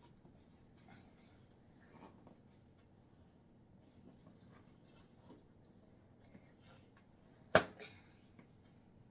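Faint rubbing and scraping of hands working a jogging-stroller tire back onto its rim, with small ticks and one sharp, loud snap about seven and a half seconds in.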